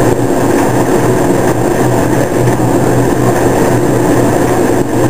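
DB class 41 steam locomotive 41 360 standing, giving off a loud, steady hum and hiss.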